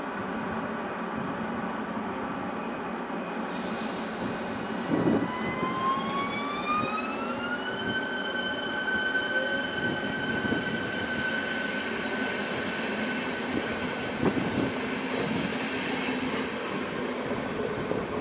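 A České dráhy class 471 CityElefant double-deck electric multiple unit moving off along the platform, its wheels rumbling on the rails. Its electric traction equipment whines, rising in pitch for a few seconds as the train gathers speed and then holding at a steady pitch. A short hiss and a thump come a few seconds in.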